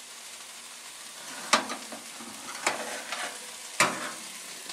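Metal baking tray being taken out of a countertop toaster oven with a cloth and set down: three sharp metallic clatters over a steady hiss.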